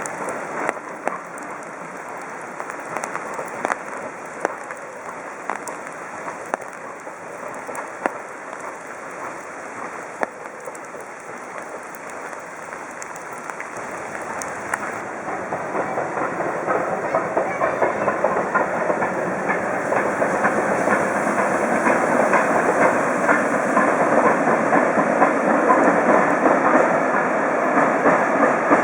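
Steam-hauled heritage train running on the line, its wheels clattering over the rail joints. It grows louder from about halfway through as it draws near.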